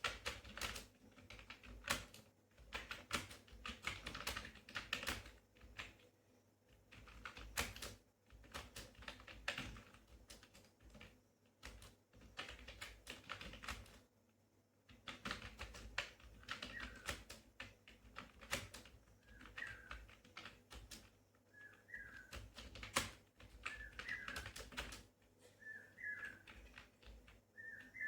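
Typing on a computer keyboard: quick runs of key clicks broken by short pauses. From about halfway, a bird chirps over it, one short call every second or two.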